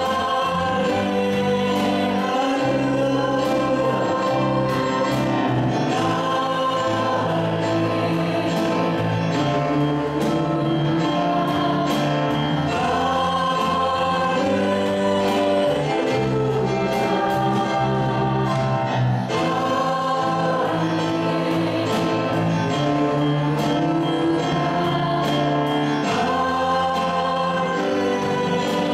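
Worship song sung by a small praise team of voices over a live band: drum kit with cymbals, keyboards and guitar, playing steadily.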